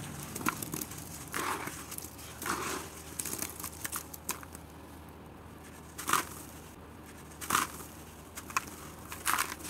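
Hands crumbling soaked red dirt blocks in a tub of water: an irregular run of crackling and crunching, quieter around the middle, with a few sharper crunches in the second half.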